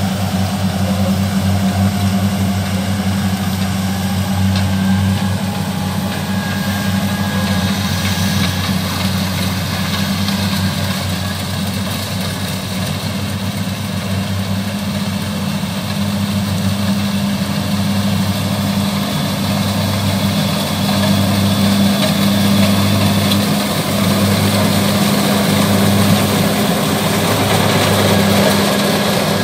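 Kubota DC70 rice combine harvester's diesel engine running steadily while it cuts and threshes rice, a low even hum. It grows louder near the end as the machine comes close.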